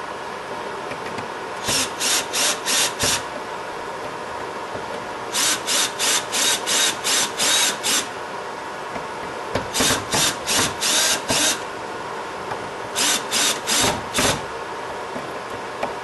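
Screwdriver driving the outlet's mounting screws into a plastic gang box: four runs of short, even strokes, about three a second, with pauses between the runs.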